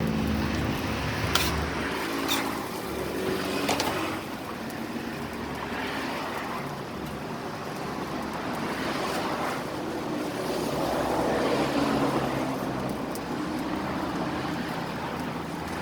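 A running motor vehicle engine with road traffic noise, and a few sharp clicks in the first four seconds.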